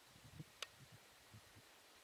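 Near silence: faint background hiss, with a few soft low bumps and one sharp click about half a second in.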